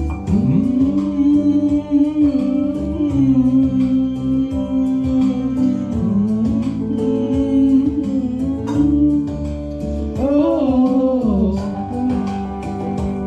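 Karaoke music: a guitar-led backing track with a voice singing a slow melody of long, held notes over it.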